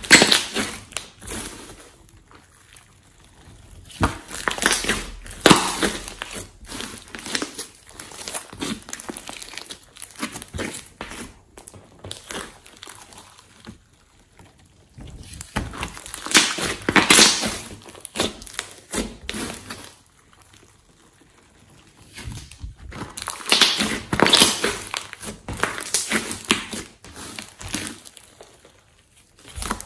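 Glossy slime mixed with foam beads and clay being pressed, stretched and folded by hand: crackling, crinkly squishing in irregular bursts with short quiet pauses between handlings.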